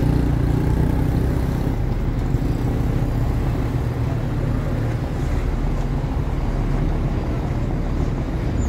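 Steady low rumble of motor-vehicle engines, with an engine hum a little stronger in the first couple of seconds before settling to an even drone.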